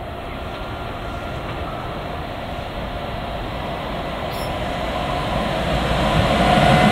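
A train approaching on the rails, growing steadily louder, with a rumble and faint high squealing tones from the wheels that strengthen near the end.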